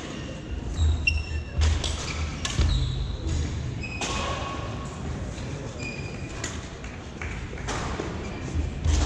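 Badminton play on a hardwood gym court: sneakers squeaking and thudding footwork, with a few sharp racket strikes on the shuttlecock in the first few seconds.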